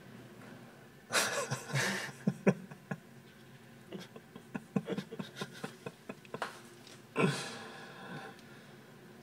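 Stifled, snorting laughter from someone right at the microphone, in two short bursts about a second long, one after about a second and one near the end, with a scatter of small clicks in between.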